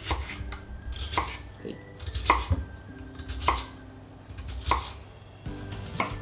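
Kitchen knife slicing a peeled lotus root into thin rounds on a wooden cutting board, each stroke ending in a crisp knock of the blade on the board. The strongest strokes come about once a second, with lighter cuts between.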